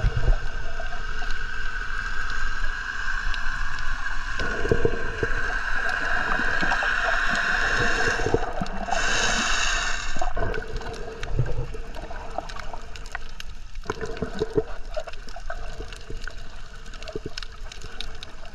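Muffled underwater water noise and gurgling picked up by a submerged GoPro during snorkelling, with a steady high tone through the first half and a brief higher whine about nine seconds in.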